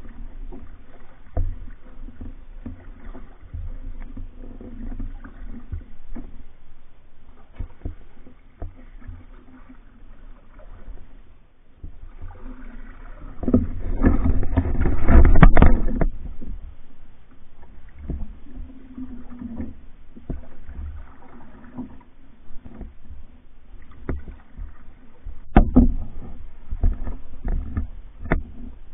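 Paddling a Hornbeck pack canoe: paddle strokes in the water over a steady low rumble, with sharp knocks now and then. A louder stretch of rumbling and knocking comes about halfway through.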